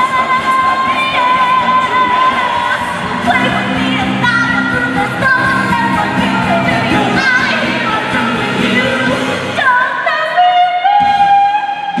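A voice singing over backing music, holding long, wavering notes. About ten seconds in, the melody drops to a lower held note.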